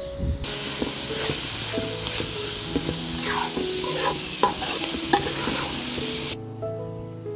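Chopped herbs for qormeh sabzi sizzling as they fry in oil in a pan, while a metal spoon stirs them and now and then clicks and scrapes against the pan. The sizzling starts about half a second in and cuts off about a second before the end.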